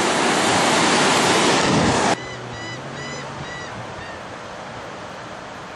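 Loud surf breaking, with wind on the microphone, that cuts off abruptly about two seconds in to quieter, more distant surf. Just after the cut a bird calls several times in quick succession, short arched notes.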